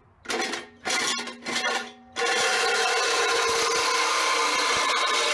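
DeWalt cordless reciprocating saw cutting a slot in steel sheet. It runs in three short bursts, then from about two seconds in cuts steadily without a break.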